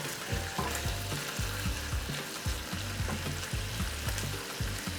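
Prawns frying in a hot pan with onion and ginger-garlic paste, giving a steady sizzle, with short knocks of stirring.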